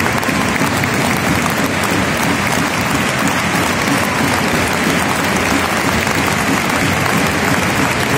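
Large football-stadium crowd applauding steadily.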